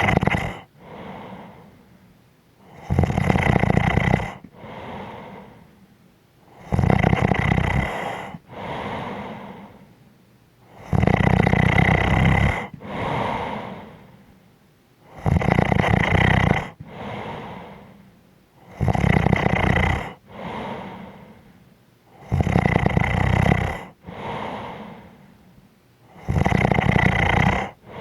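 Snoring in a slow, even rhythm: each loud snore lasts about a second and a half and is followed by a softer breath, and the cycle repeats about every four seconds, seven times over.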